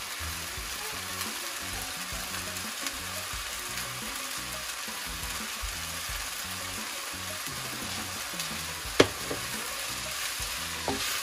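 Rice and vegetables frying in a pan: a steady sizzle with stirring, and a single sharp knock about nine seconds in.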